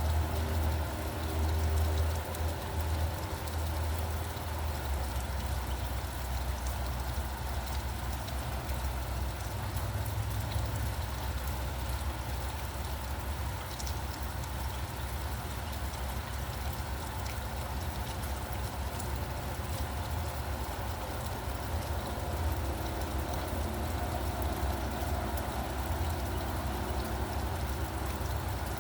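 Steady rain falling, under the low, continuous rumble of road traffic, with a faint engine hum at the start and again near the end.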